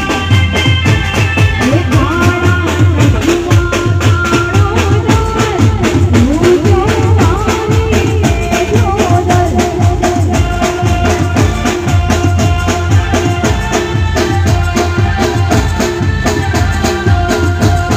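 Live garba music from a stage band: an electronic keyboard melody over a steady, fast drum beat, played loud through a PA system.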